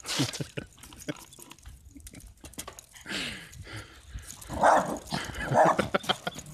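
Jack Russell terrier barking at a mountain bike's front wheel as it is ridden, the dog attacking the moving bike. The two loudest barks come about a second apart near the end, among short clicks and rattles.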